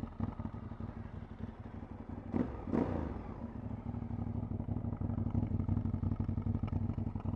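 2008 Ducati 848's L-twin engine idling through its exhaust, a steady pulsing run, with two short louder blips about two and a half seconds in.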